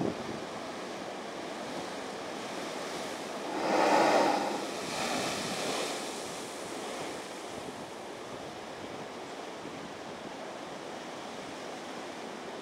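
Ocean surf washing steadily over a lava-rock shelf, with the Spouting Horn blowhole erupting about four seconds in: a loud rushing whoosh of water and spray forced up through the lava tube, then a smaller second gush before the surf settles back.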